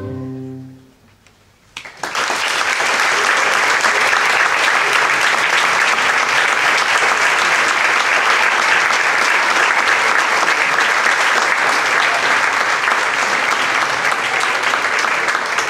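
A band and choir's last chord dies away in the first second, then after a brief silence an audience breaks into loud, steady applause.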